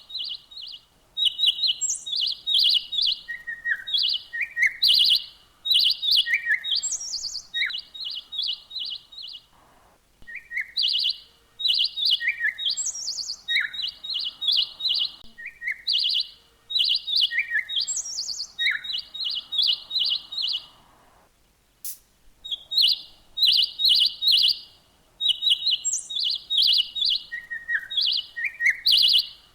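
A songbird singing in repeated phrases of rapid, high chirps, each run closed by short downward-slurred notes, with brief pauses between bouts.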